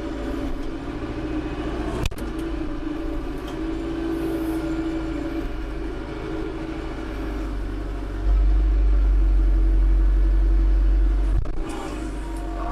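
Tractor diesel engine running steadily under load while working a front grapple on a heavy stump. About eight seconds in, a deep low rumble swells up sharply for about three seconds, then drops back, with a sharp click as it ends.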